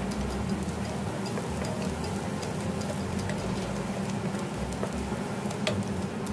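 Diced onions sizzling in hot oil in a frying pan: a steady sizzle with many small crackles and pops of spattering fat, one sharper pop near the end.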